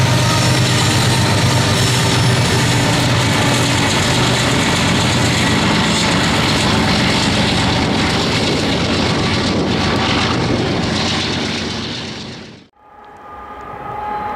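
BNSF diesel-electric freight locomotives passing close, with a steady engine drone under the rumble and clatter of the train. The sound fades and drops out about twelve seconds in, then comes back fainter.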